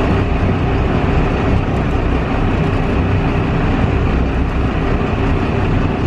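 Fishing boat's engine running steadily, heard on board: a constant low hum under an even rushing noise.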